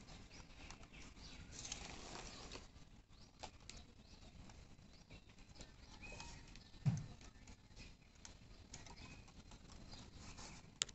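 Faint rustling and small clicks of a white plastic strap being threaded and pulled through the bamboo slats of a mura frame, with a short low thump about seven seconds in.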